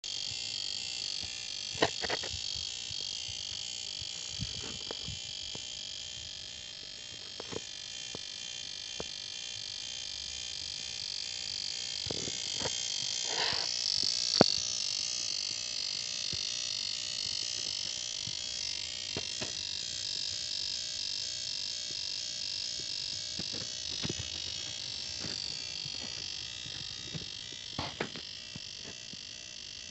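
BMW 318tds 1.7-litre four-cylinder turbodiesel running, with a steady high-pitched buzzing hiss and scattered irregular clicks. This is the unexplained noise that appears after about five minutes of running, which the owner suspects may come from the high-pressure fuel pump.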